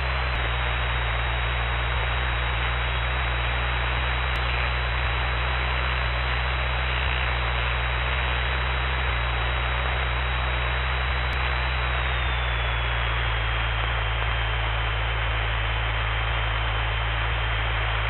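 Steady hiss over a low hum on the Cessna 172's separately recorded cockpit audio feed in flight. A faint high whine steps down slightly in pitch about twelve seconds in.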